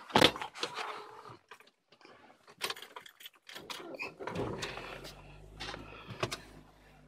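Footsteps crunching and snapping through dry leaves and twigs while walking uphill, irregular cracks with the sharpest just after the start. About four seconds in a low steady hum comes in underneath.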